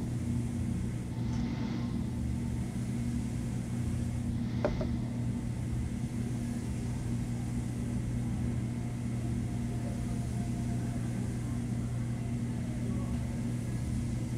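Steady low hum of room background, with one brief sharp sound about five seconds in.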